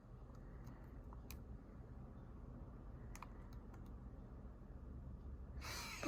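Faint, scattered light clicks over a low steady hum, then a short breathy sigh with a falling pitch near the end.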